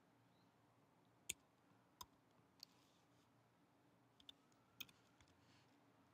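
A handful of faint, isolated computer keyboard keystrokes, typed slowly one at a time with pauses between them, over near silence.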